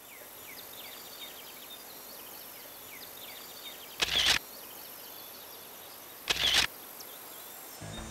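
Outdoor ambience with small birds chirping, then two loud camera shutter clicks, one about four seconds in and another about two seconds later.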